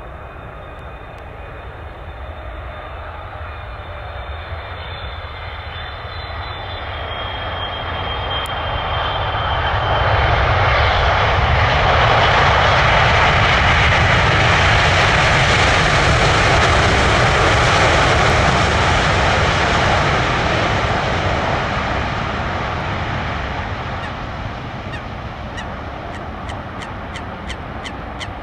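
A Boeing 777-300ER's twin GE90 turbofans passing on arrival. A high fan whine comes first, then the jet noise swells to a peak for several seconds and slowly fades as the aircraft goes by.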